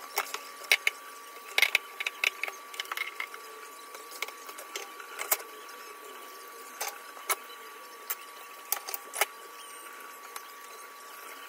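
Dishes and utensils clinking and knocking at a kitchen sink during washing up, in sharp, irregular clatters. A thin, steady whine sits in the background.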